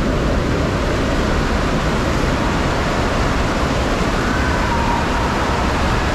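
FlowRider wave machine running: a steady, loud rush of pumped water sheeting up its padded slope.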